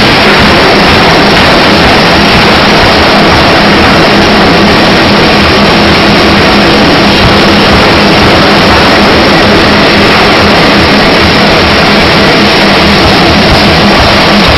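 Open-die pneumatic forging hammer working hot steel bar into balls, recorded so loud that it comes out as a steady, heavily distorted din with a low hum underneath. The individual blows do not stand out.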